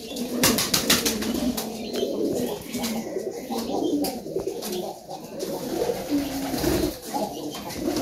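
A flock of domestic pigeons cooing repeatedly while feeding, with a quick run of sharp taps about half a second in.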